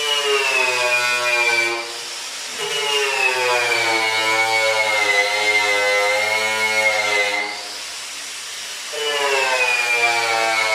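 Electric grinder working sheet metal in three runs: each time the motor's whine starts high and drops in pitch as the tool is pressed into the metal, then holds steady.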